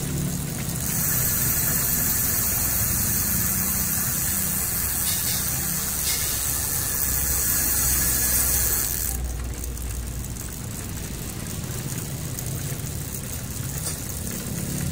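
Folding bike's rear wheel spinning freely, its freewheel ratchet clicking in a fast, dense buzz from about a second in, turning quieter about nine seconds in.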